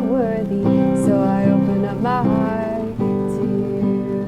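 Music: strummed acoustic guitar with a sung melody that ends about halfway through, leaving the guitar alone on a new chord.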